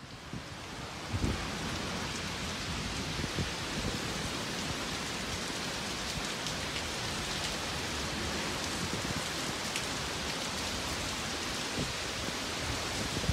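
Heavy rain pouring down, a dense steady hiss that builds over the first second or so and then holds.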